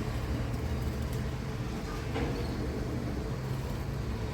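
Steady low background rumble with a couple of faint short clicks.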